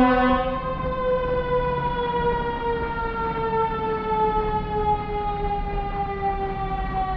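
Emergency vehicle siren on a long wail: a single tone, having just risen quickly, that falls slowly and steadily in pitch.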